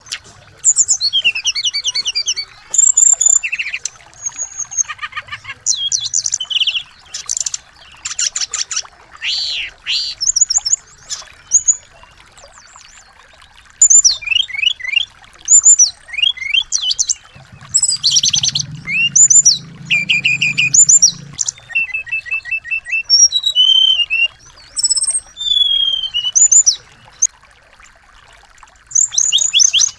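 Small songbirds singing in quick, varied phrases of high chirps, trills and whistles, with short pauses between bursts and a longer lull of a couple of seconds partway through.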